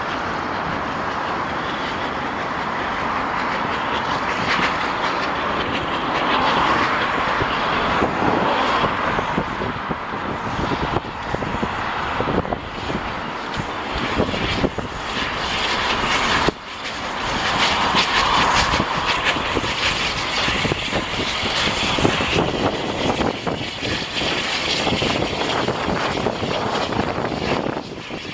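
Double-headed steam locomotives, an LMS Black 5 and Bulleid Battle of Britain Pacific 34067 Tangmere, working under steam with a dense exhaust sound. It grows somewhat louder as the train nears and passes close.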